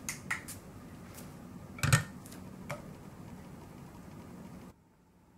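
A bare foot stepping onto a glass-topped bathroom scale, landing with one loud thud about two seconds in, amid a few light clicks and taps. A low steady hum runs underneath and cuts off abruptly near the end.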